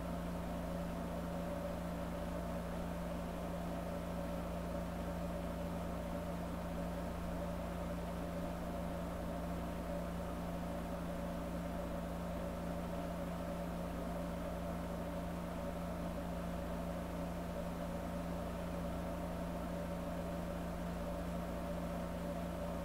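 A steady, unchanging low hum with a faint hiss over it.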